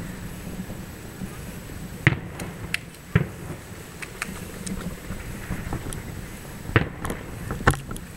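Aerial firework shells bursting: four sharp bangs, about two and three seconds in and twice near the end, with fainter pops between them.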